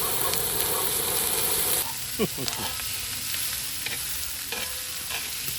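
Pork belly frying in a pan, with a steady sizzle that is louder for the first two seconds and then softer. A few light clicks and a short gliding squeak come about two seconds in.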